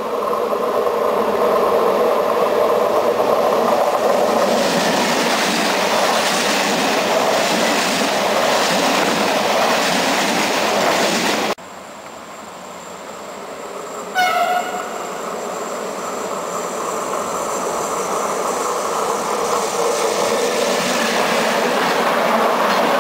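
Electric-hauled trains on the Brenner line: one approaches and runs past with a steady rolling rumble that builds, then cuts off abruptly about halfway through. A second train sounds one short horn blast about two-thirds of the way in, and its passenger coaches roll past with a rumble that grows louder near the end.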